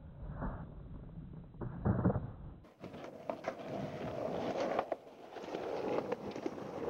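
Skateboard wheels rolling on rough concrete, a gritty rumble with small clicks, and one heavy low thump about two seconds in. After a brief gap the rolling rumble goes on.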